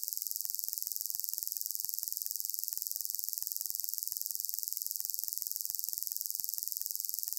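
Steady high-pitched hiss with nothing else heard: no machinery, voice or music.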